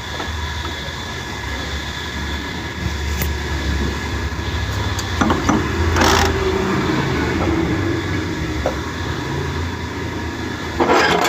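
A steady low mechanical hum, with brief metallic clatter of parts and tools being handled about five to six seconds in and again near the end.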